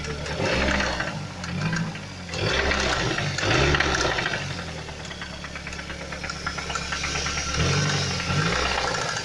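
Mazda CX-7 engine blipped up and down several times from idle, with a knocking, crunching noise coming from the engine.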